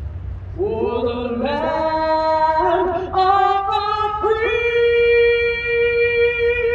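A solo voice singing unaccompanied, a slow melody of long notes, ending on one note held steadily for several seconds.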